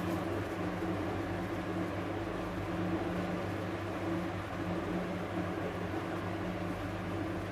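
A steady low mechanical hum with an even hiss underneath, holding level throughout.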